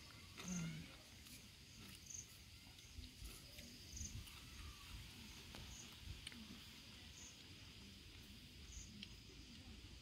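Faint insect ambience: a steady high drone with a short high chirp repeating about every second and a half, and a few soft clicks.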